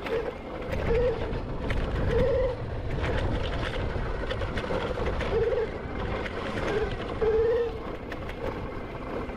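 Electric dirt bike riding over a rough trail: the motor's whine swells and fades several times around one pitch as the throttle comes on and off, over a steady rumble of wind and tyres with small scattered clicks.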